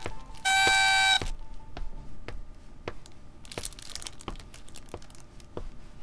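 A party blowout horn blown in one steady, buzzy honk lasting under a second, about half a second in; then scattered light clicks and taps.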